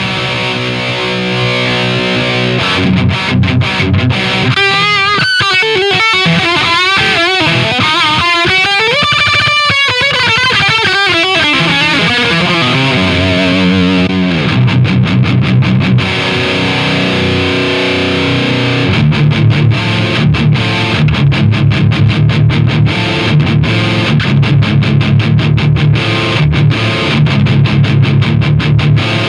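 Distorted electric guitar played through a Diezel VH2 tube amplifier into a Marshall 1960 Lead 4x12 cabinet. It opens with riffing, has a lead passage with string bends and wide vibrato from about five to twelve seconds in, and ends in fast, rhythmic low chugging.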